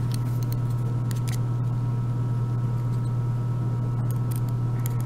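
A steady low hum throughout, with a few faint light clicks of a metal tool working inside the housing of a gutted euro cylinder lock.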